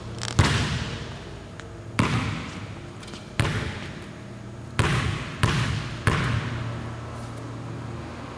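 Basketball bouncing on a hardwood gym floor: six sharp bounces, the last three closer together, each echoing in the large hall. A steady low hum runs underneath.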